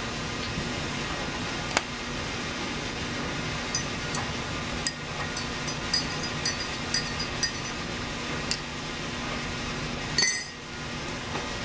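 Metal teaspoon stirring milk tea in a glass mug, clinking against the glass in a run of light ringing clinks, about three a second, with a brief louder clatter near the end. A steady low hum runs underneath.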